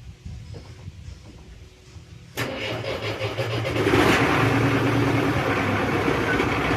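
An excavator's diesel engine comes up loudly and suddenly about two and a half seconds in, steps up again a second later, and keeps running hard as the boom is worked.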